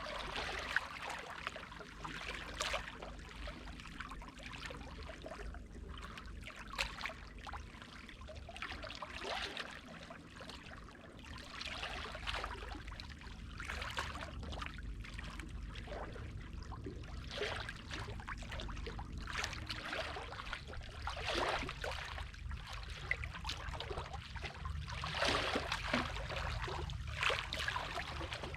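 Sea water lapping and splashing in small, irregular splashes over a steady low rumble.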